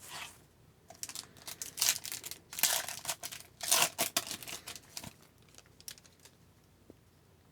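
Foil trading-card pack wrapper being crinkled and torn open: a run of rustling, crackling bursts for about four seconds, then a few faint handling sounds.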